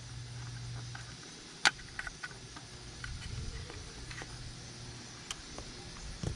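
A few small sharp plastic clicks and taps from handling and twisting a brake-lamp bulb socket while swapping in an LED, the loudest about a second and a half in, over a faint steady low hum.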